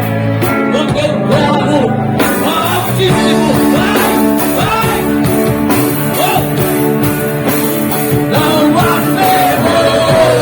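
Live band playing a rock-style Christian song: sung lead vocals over drums, electric guitar, bass and keyboard, with a long held vocal note near the end.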